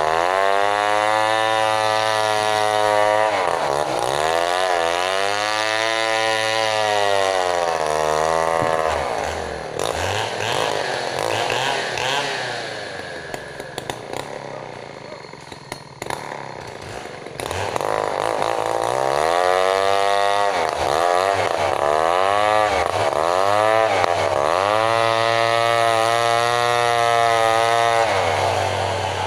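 Stihl MS 070 two-stroke chainsaw running, its engine speed swinging up and down again and again. It drops to a quieter, lower running for several seconds in the middle, then revs up and down again.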